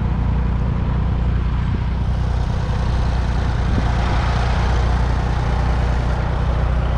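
Massey Ferguson 148's 2.5-litre three-cylinder diesel engine running steadily, heard close up from on the tractor.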